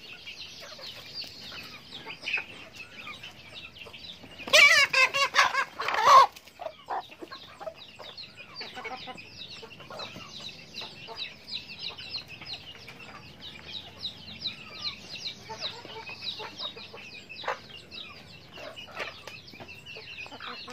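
Flock of hens and roosters clucking and giving many short high chirps as they feed. About four seconds in, one bird gives a loud, drawn-out call lasting nearly two seconds, the loudest sound here.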